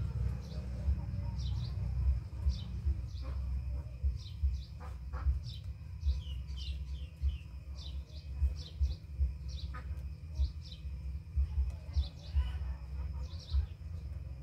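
Small birds chirping in short high notes, one or two a second, with a few lower falling chirps about halfway through. Underneath is a steady low rumble with soft thumps, and a few sharp clicks.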